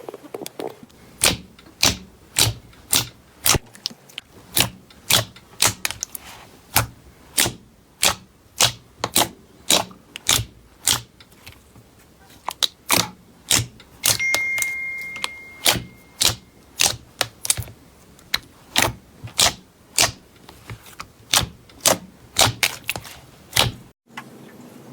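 Slime being pressed and worked by hand, giving a steady run of sharp popping clicks, about two a second, as air pockets in it burst.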